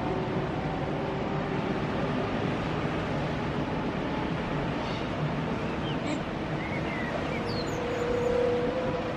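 Electric train running past on the coastal line: a steady rumble of wheels on rail with faint whining tones over it.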